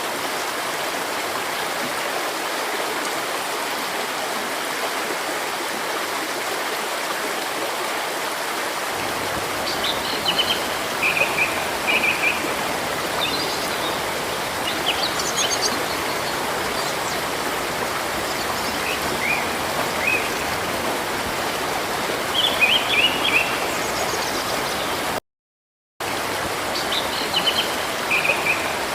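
River water running steadily. From about ten seconds in, small birds chirp in short high bursts over it. The sound cuts out completely for under a second near the end.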